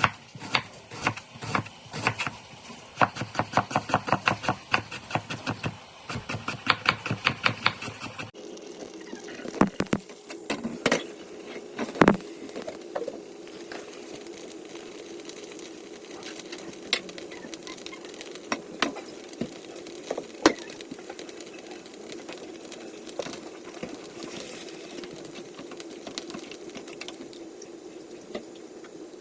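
Knife chopping rapidly on a cutting board, about four to five strokes a second. About eight seconds in it cuts off abruptly to a steady hum with occasional knocks and clicks.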